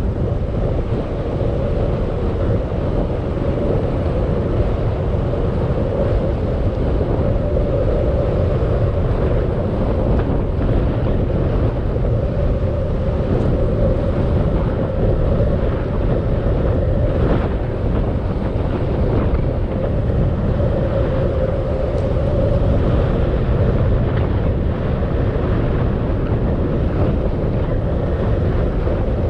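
Steady rush of wind on the microphone of a camera carried on a moving bicycle, with a low rumble throughout.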